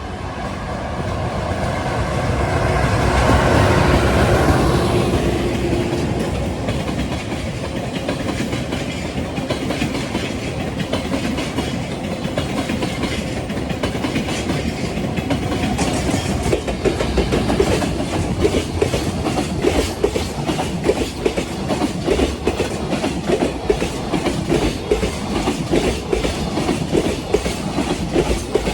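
Freight train passing, loudest in the first few seconds, then a long line of wagons rolling by with the wheels clicking over rail joints in a fast, even rhythm that grows sharper in the second half.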